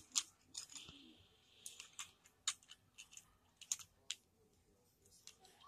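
Plastic Lego bricks clicking against each other as they are handled: a dozen or so sharp, irregular clicks, with a brief soft rustle about a second in.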